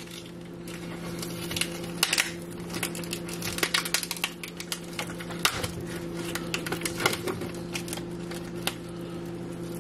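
Irregular clicks, taps and light knocks of things being handled on a kitchen counter, over a steady low electrical hum.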